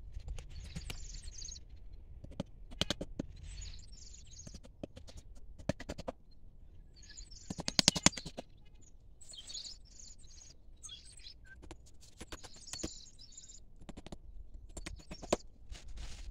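Small birds chirping in short bursts, mixed with scattered sharp clicks and knocks. A loud cluster of clicks comes about eight seconds in.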